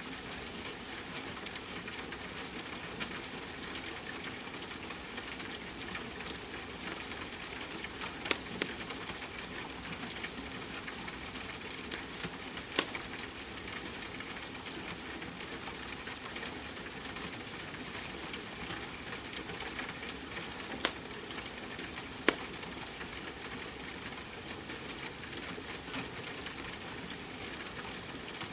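Wood fire crackling in a fireplace, with scattered sharp pops a few seconds apart, over a steady hiss of rain.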